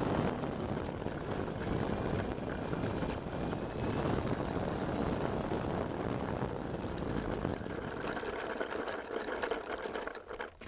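Steady low rumbling noise on the microphone of the camera mounted on the landed RC T-28 model plane, with a faint steady high whine through most of it. The rumble thins out about eight seconds in, and a quick run of clicks and knocks follows near the end as someone walks up to the plane and handles it.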